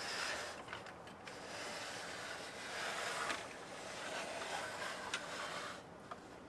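Handling noise from unboxing a large plastic toy: a few light clicks, then several seconds of scraping and rubbing that stops shortly before the end, followed by another click.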